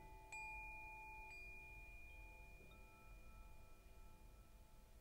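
Faint, slowly fading chime tones in soft meditation background music. New chimes are struck about a third of a second in and again about a second later, and a softer tone joins partway through.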